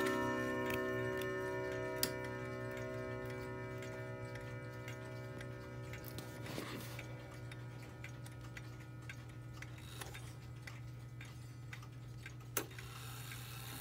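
Chime rods of a Howard Miller 613-303 wall clock ringing on and fading away after a chime, with the clock ticking underneath. A sharp click comes near the end as the minute hand is turned by hand.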